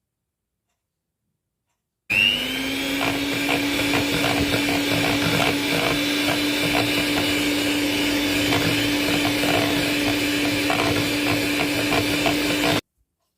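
Electric blender motor starting about two seconds in, its hum rising briefly as it spins up, then running steadily for about ten seconds before stopping abruptly.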